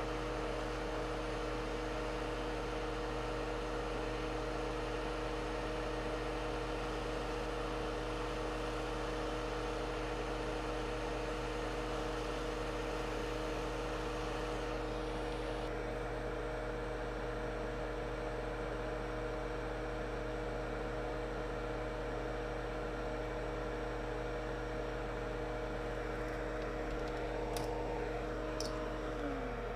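Steady hum of running workbench equipment, an electric fan or motor with mains hum: several held tones over a hiss, one of which slides down in pitch near the end. Two faint ticks come shortly before that.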